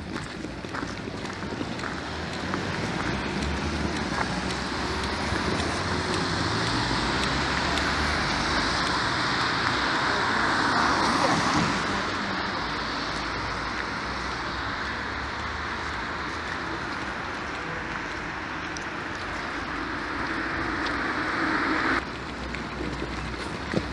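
Street traffic noise on a wet road, a steady hiss that swells as a vehicle passes about halfway through and then eases. Wind rumbles on the microphone underneath.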